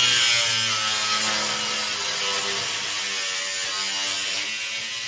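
Angle grinder cutting through 1/16-inch steel plate, running steadily with its pitch wavering slightly as the disc works through the metal.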